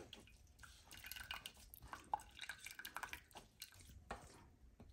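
Tomato juice dripping faintly from a stainless mesh sieve into a pot, with scattered soft clicks and a light tap about two seconds in.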